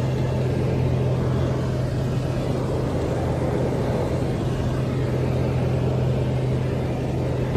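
Small propeller airplane's piston engine running steadily at a constant pitch, a continuous drone with no change in speed.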